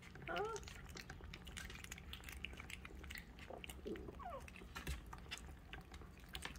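Puppies chewing and crunching kibble from a stainless steel dish, a scatter of small wet clicks and crunches. Two brief high, wavering squeaky sounds cut in, about half a second in and again about four seconds in.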